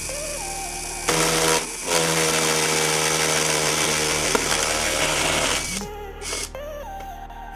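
Small electric power tool motor running steadily with a buzzing whine, most likely working the PVC pipe. It dips briefly about a second and a half in and stops near the end.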